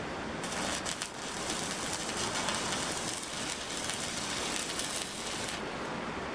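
Stick (arc) welder crackling and hissing as a bead is run on a steel bracket of a tubular protection bar. The arc strikes with a few pops about half a second in, burns for about five seconds and cuts off shortly before the end. The weld repairs a bracket that cracked when it was bent back.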